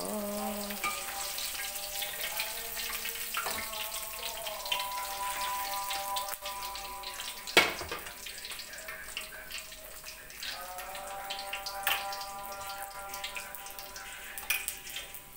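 Fish frying in hot oil in a wok, a steady sizzle and spatter, as the fried fish are lifted out with a metal spatula that clicks against the pan a few times.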